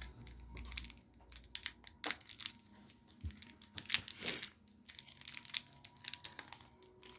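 Foil wrapper of a Magic: The Gathering booster pack crinkling and tearing as it is opened, a run of sharp crackles.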